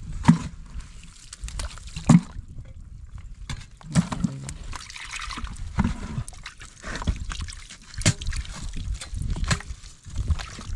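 A hand sloshing and splashing in a small pool of muddy water in a dug hole, feeling for fish, with irregular small knocks of soil and clods.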